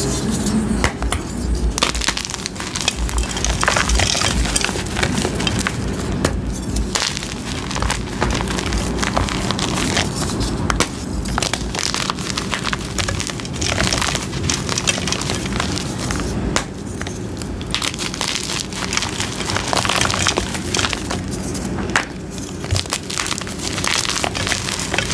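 Coloured gym chalk blocks crushed and crumbled in bare hands: a continuous crunchy crackle of chalk breaking into chunks and powder.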